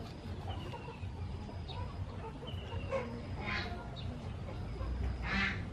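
Chickens clucking, with a few short calls, the clearest about halfway through and just before the end.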